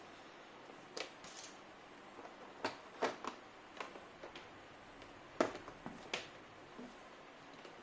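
About ten irregular, sharp clicks and knocks of hard objects being handled, spread out with short pauses between them.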